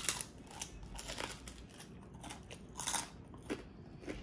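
Crispy deep-fried pork chicharon being bitten and chewed: an irregular run of sharp crunches, strongest at the first bite and again about three seconds in.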